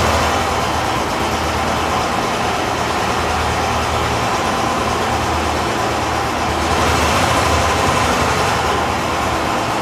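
Yamaha YBR125G's 125 cc single-cylinder four-stroke engine idling steadily, just after a cold start.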